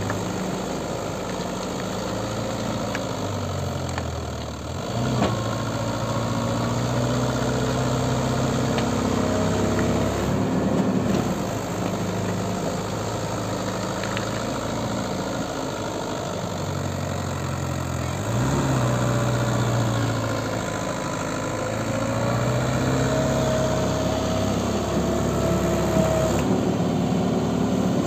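Mahindra Yuvo 575 4WD tractor's diesel engine labouring under load as it drags a loaded trailer through deep mud. The revs sag and then climb again twice, a few seconds in and about two-thirds of the way through.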